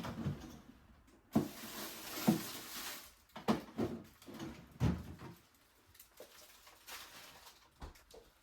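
Kitchen handling sounds: about five knocks of objects being set down or handled on a counter, with a stretch of rustling noise early on the first two of them, then a few faint taps.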